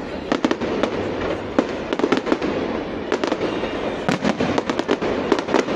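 Aerial fireworks bursting overhead: a dense, irregular run of sharp bangs and crackles, about three or four a second, over a continuous crackling haze.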